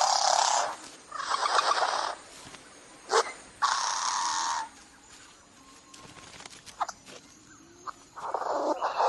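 Bowerbird giving noisy, hiss-like calls about a second long: three in the first five seconds, with a sharp click between the second and third, and a fourth near the end.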